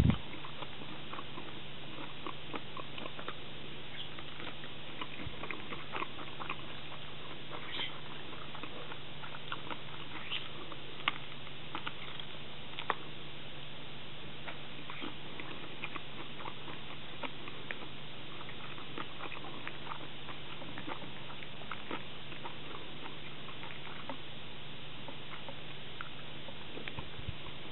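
Someone eating shrimp tempura and rice, with small crunches and clicks scattered irregularly over a steady hiss and a low hum; a couple of louder crunches come about halfway through.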